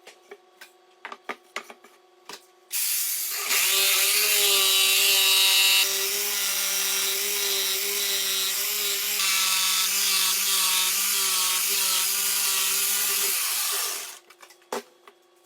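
A few light knocks, then an electric power tool runs under load for about eleven seconds with a steady whine, and winds down and stops near the end.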